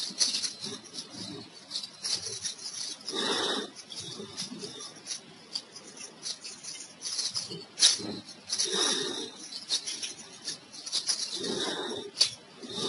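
Computer keyboard typing: irregular, rapid key clicks, with short pauses between runs of keystrokes.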